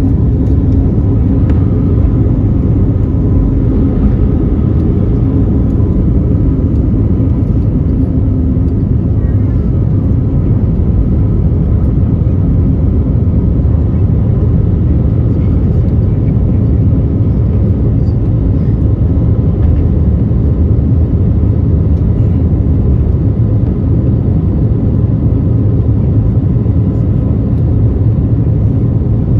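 Cabin noise of an Airbus A320neo taking off and climbing out, heard from a window seat over the wing. The engines are at takeoff thrust and make a loud, steady rumble that does not let up.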